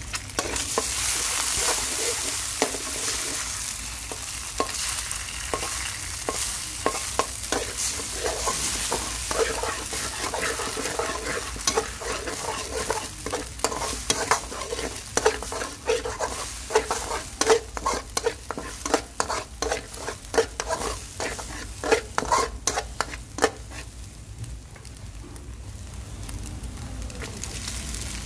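Eggs sizzling in hot oil with fried garlic in a metal wok. Through the middle, a spatula scrapes and clicks rapidly against the wok as the eggs are scrambled. The scraping stops a few seconds before the end, leaving a softer sizzle.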